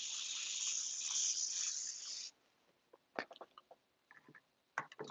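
Paint being sprayed onto canvas: one steady hiss lasting about two and a half seconds that cuts off sharply, followed by a few faint clicks.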